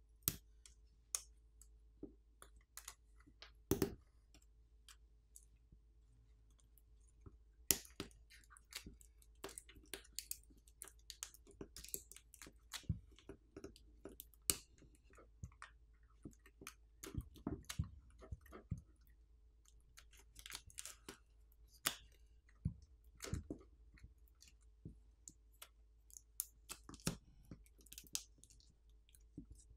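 Scattered faint clicks and crackles of a Google Pixel 9a's battery pull tab and its adhesive being peeled and tugged by hand. The tab is not freeing the battery from its strong adhesive.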